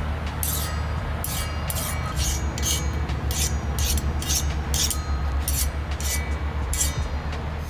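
A hand file scraped in quick back-and-forth strokes across the hardened steel face of an anvil, about two to three strokes a second; the file skids over the surface instead of biting, the sign that the face has hardened. A steady low hum runs underneath.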